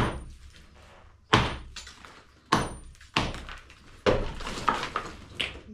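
Heavy blows on a masonry wall being knocked through: single sharp thuds about a second apart, each dying away quickly. Near the end comes a busier run of knocks.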